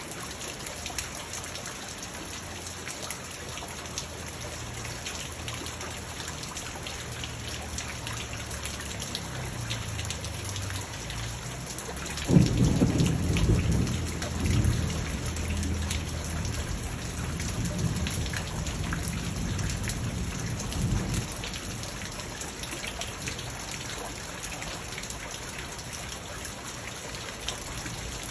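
Steady rain falling on a garden pond and its rocks. About twelve seconds in, a sudden crack of thunder breaks out and rolls on as a low rumble that dies away over the next eight or nine seconds.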